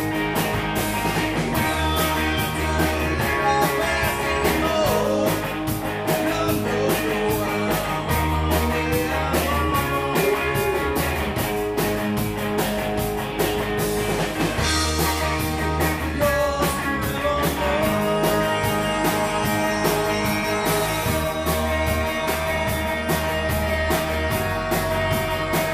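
Live rock band playing an instrumental section: electric guitar lead over bass and a steady drum beat, ending on a long held guitar note in the last several seconds.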